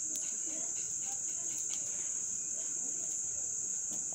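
A steady, high-pitched background tone that holds level throughout, with a few faint clicks.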